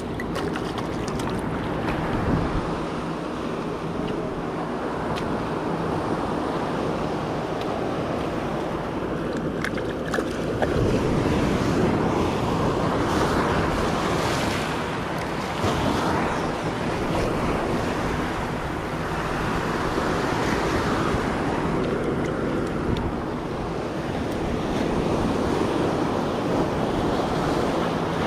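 Sea surf breaking and washing over a rocky shore, a continuous rushing wash that swells louder as bigger waves come in, about halfway through and again near the end, with wind buffeting the microphone.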